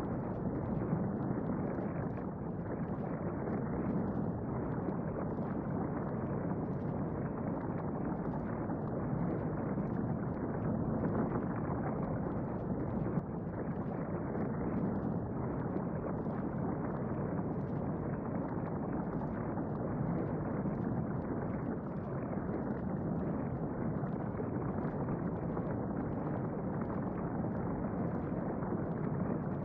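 Steady, muffled rumbling with a low gurgle: a looped volcano and bubbling-lava sound effect.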